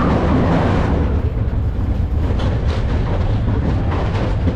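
Mine-train roller coaster cars rumbling along their track at speed, with a few short clacks about halfway through.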